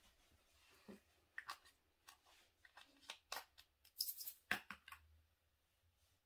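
Small plastic diamond-painting drill bottles clicking and tapping as they are handled and set into a storage case: a string of light clicks, the loudest a little after four seconds in.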